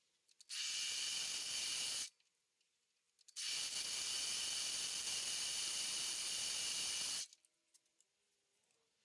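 A steady hiss that comes on and cuts off abruptly, twice: a short stretch of about a second and a half, then a longer one of nearly four seconds.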